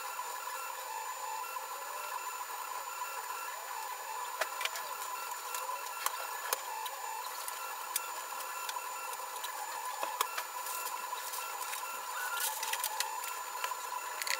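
UP Plus 2 3D printer running a print: a steady whine from its stepper motors in several tones, with scattered sharp ticks.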